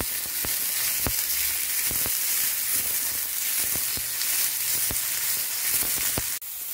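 Onions and tomatoes sizzling in hot oil in a nonstick frying pan, with the stirring spoon knocking against the pan every second or so. The sizzle breaks off for an instant near the end and comes back more quietly.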